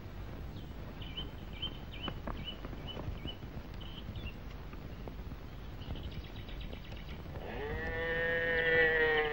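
A cow mooing once, a single long call lasting about two seconds that starts near the end.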